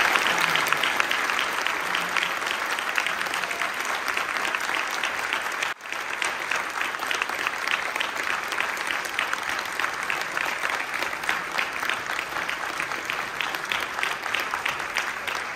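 Audience applauding at the end of a talk, a dense, steady clapping that cuts out abruptly just before six seconds in and picks up again at once.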